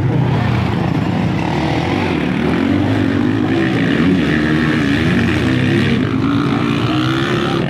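Motocross dirt bike engine revving up and down as it works through deep mud, its pitch rising and falling again and again.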